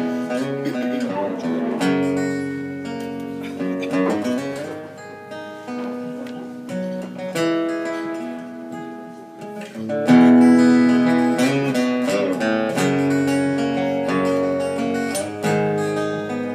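Acoustic guitar playing an instrumental introduction: plucked and strummed chords that change every second or two, growing louder about ten seconds in.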